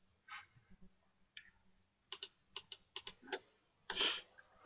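Faint clicking on a computer keyboard: a quick run of about seven light clicks over a little more than a second, then a louder short burst of noise near the end.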